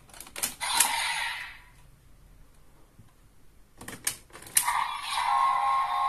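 Plastic clicks as a raise buckle is pulled from a DX Desire Driver toy belt, then a second group of clicks about four seconds in as the Zombie Raise Buckle snaps into its slot and the belt's electronic sound effect starts from its small speaker.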